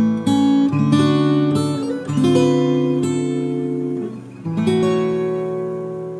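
Acoustic guitar playing a slow, calm piece of plucked chords; the last chord, struck about four and a half seconds in, is left to ring and fades away.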